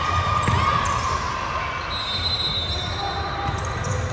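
Basketball bouncing on the court during a game, among short sharp knocks and squeaks and faint voices from players and spectators.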